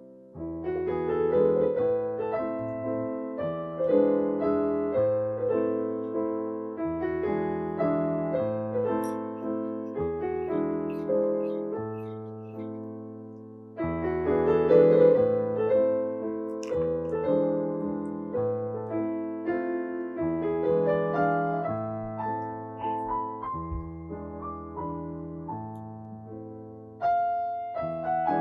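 Background piano music: a gentle melody played in phrases of held notes.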